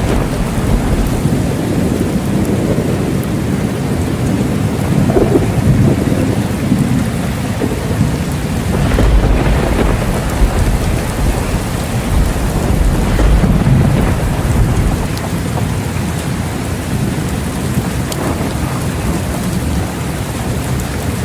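Steady rain falling in a thunderstorm, with low rolling thunder rumbles swelling up three times: about a quarter of the way in, near the middle, and again a little later.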